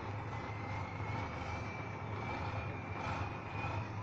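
Tatra trial truck's diesel engine running under load as the truck crawls through a pit: a steady low drone with a thin high whine slowly rising in pitch.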